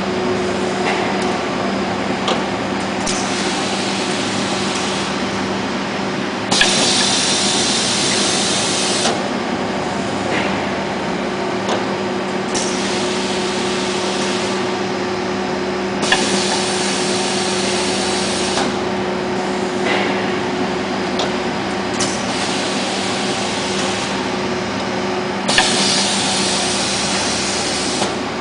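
Industrial belt-processing machinery running with a steady electric hum, broken every few seconds by a two-to-three-second burst of compressed-air hiss, with occasional sharp clicks like pneumatic valves switching.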